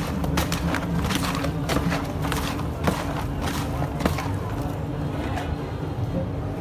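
A steady low hum with irregular light knocks and clicks, and faint voices in the background.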